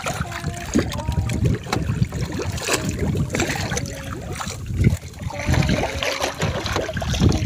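Sea water splashing and sloshing right beside a small outrigger boat as a diver surfaces next to it, with irregular low thumps and bumps.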